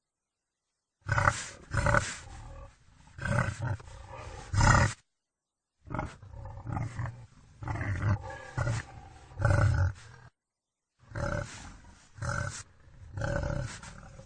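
Wild boar calling: three bouts of short, loud, deep calls, several to a bout. The bouts are separated by brief spells of dead silence where recordings are spliced together.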